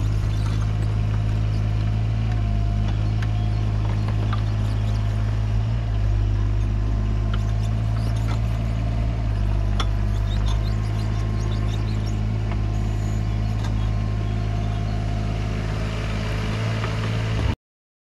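Yanmar SV17ex mini excavator's three-cylinder diesel engine running steadily under work, with scattered light clicks and knocks over it. The sound cuts off suddenly near the end.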